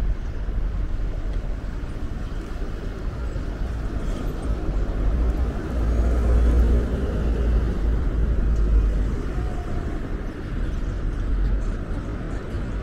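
City street traffic noise: a continuous low rumble of passing vehicles that swells about halfway through, as one passes close by, then eases.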